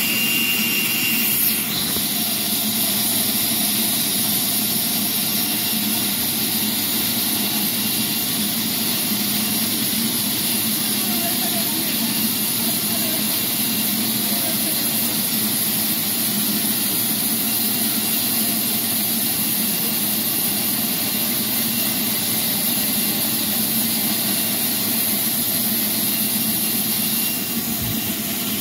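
Horizontal band sawmill cutting lengthwise through a log as the carriage feeds it past the blade: a loud, steady whirring noise from the blade and machinery. A thin high whine stops about a second and a half in.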